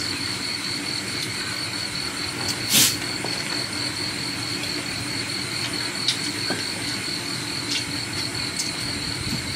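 Crickets and other night insects trilling steadily in a high, finely pulsing chorus. About three seconds in there is a short louder clatter, followed by a few faint clicks.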